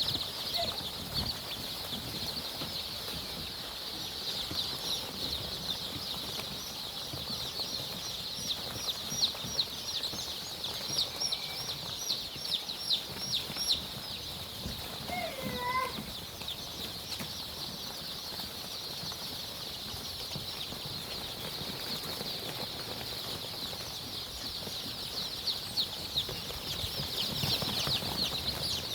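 A large flock of chickens in a chicken farm chirping together, a dense high-pitched chorus that grows louder in the middle and again near the end, with one short falling call about halfway through.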